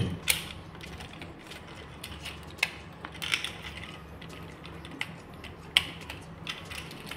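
Plastic parts of a Studio Series Gamer Edition Optimus Prime action figure being handled during transformation: three sharp clicks as parts peg in or joints ratchet, with scraping and rustling of plastic in between.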